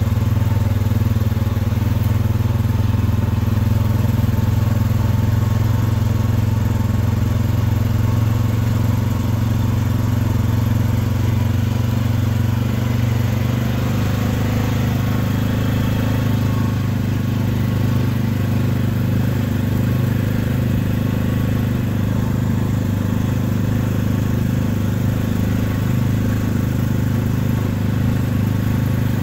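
ATV (four-wheeler) engine running steadily as it drives along a snowy trail, a continuous low drone.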